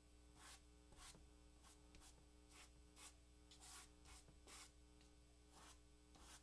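Faint scratching of an unsheathed crayon held sideways and rubbed on paper in quick zigzag shading strokes, about two strokes a second.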